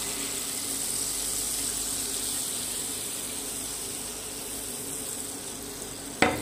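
Butter melting and sizzling in a non-stick frying pan, a steady fizzing hiss. A sharp knock near the end.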